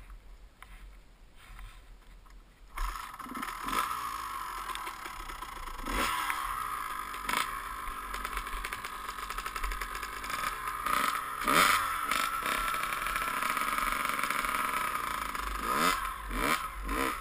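Dirt bike engine cutting in suddenly about three seconds in, then revved up and down repeatedly.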